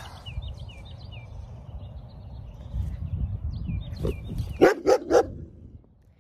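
A dog barks three times in quick succession about two-thirds of the way through, over a low wind rumble on the microphone. Faint high chirps come and go before the barks.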